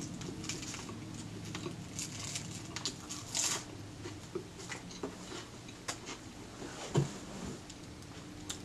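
Lettuce leaves being torn by hand and crunched while eating: scattered small crackles and crunches, a couple a little louder, over a low steady hum.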